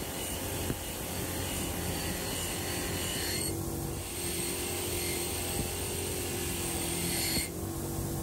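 A bench grinder running steadily, with the hiss and rasp of a rusty steel drill shoulder plate pressed against the spinning wheel to strip the rust. The grinding noise breaks off briefly about three and a half seconds in, then stops again near the end while the motor keeps running.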